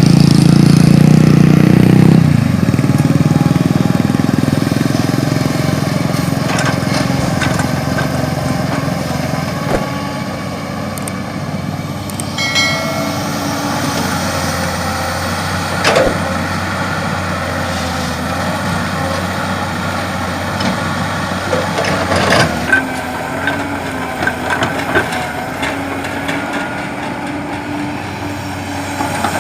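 Heavy diesel engines of an excavator and a dump truck running steadily, loudest in the first two seconds. There are a few sharp knocks, about sixteen and twenty-two seconds in.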